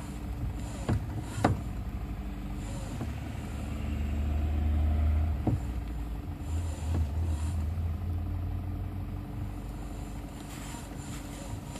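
Car running with a low steady hum that swells for a couple of seconds in the middle, and a few sharp knocks, the loudest about a second and a half in.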